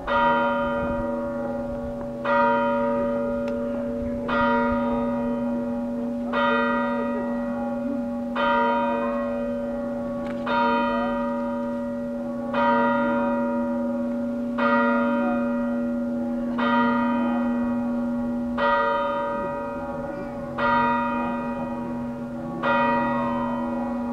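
The Frauenkirche's clock bell striking twelve slow strokes, about two seconds apart, with each stroke ringing on into the next over a steady low hum.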